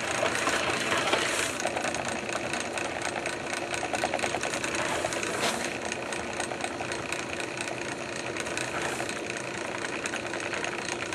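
Drill press running a home-made dough mixer, its steel hook turning a big batch of bread dough in a rotating propane-tank bowl, with a steady, rapid rattle.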